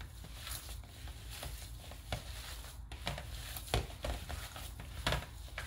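Ground beef being kneaded and mixed by gloved hands in a glass bowl: faint, irregular wet squishes with a few soft taps.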